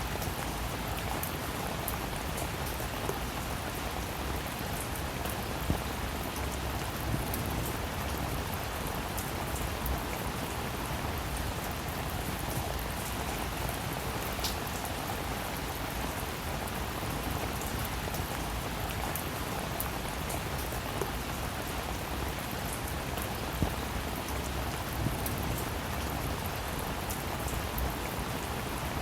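Steady rain falling on a surface, with the patter of individual drops ticking now and then over an even hiss.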